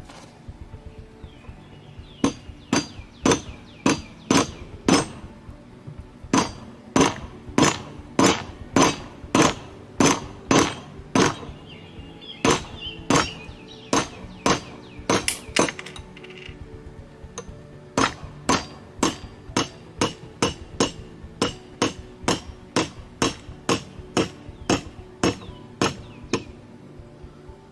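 Repeated metal-on-metal hammer blows on a bolt used as a drift, driving the wrist pin out of a Blackmer gas compressor's crosshead and connecting rod. The blows are sharp and ringing, about two a second, in three runs with short pauses between them.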